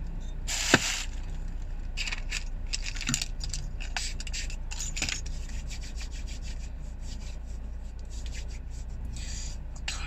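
Plastic food wrapper crinkling and rustling as it is handled and unwrapped, in a run of short crackles that is loudest about half a second in.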